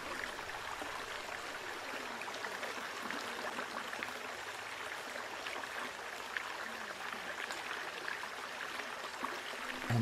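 Steady rush of a flowing creek, an even hiss of running water without breaks.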